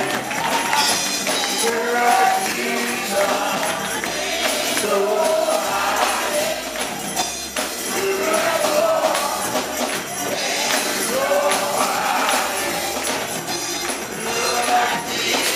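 Gospel music: a tambourine shaken and struck in a steady rhythm over congregational singing.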